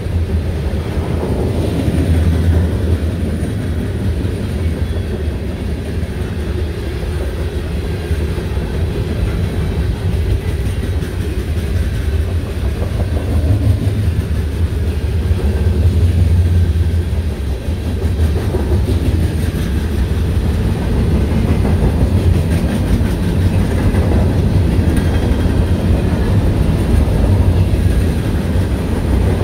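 Freight train cars rolling past close by: a steady, heavy rumble of steel wheels on the rails.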